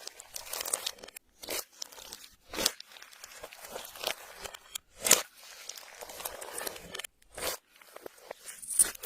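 Hands squishing and stretching clear slime, making irregular crackling squelches with a few louder pops.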